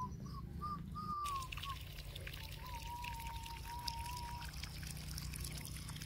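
A faint whistled tune: short gliding notes, then one long held note with a slight waver, over a steady low rumble and a fine crackling hiss.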